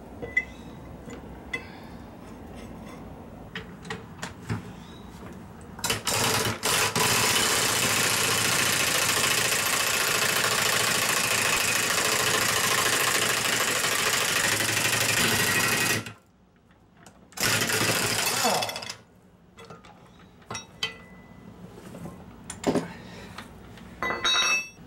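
Pneumatic impact wrench running the screw of a ball joint press, pressing a new lower ball joint into a Dana 44 steering knuckle: a couple of short bursts, then about ten seconds of continuous running, and a shorter burst a little later. Metal clicks and knocks from the press and tools come before and after.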